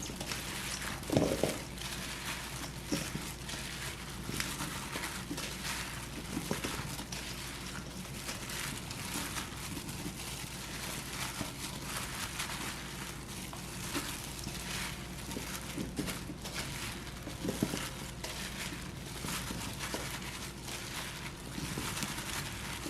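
Large green onions being handled and mixed with kimchi seasoning: a steady run of irregular wet crinkling and crackling, with a soft thump about a second in and another past the middle.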